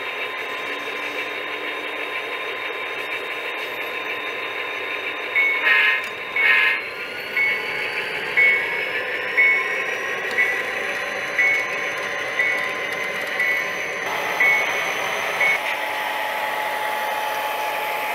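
HO scale model diesel locomotive's DCC sound decoder playing through its small speaker: a steady diesel engine sound, two horn blasts about five to seven seconds in, then a bell ringing about once a second for some eight seconds. A high whine rises in pitch after the horn as the engine sound builds.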